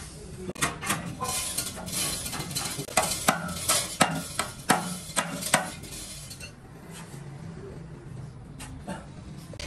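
Metal clinking and clanking: an irregular quick run of light metal-on-metal knocks for about five seconds, then it eases off to a few scattered clicks.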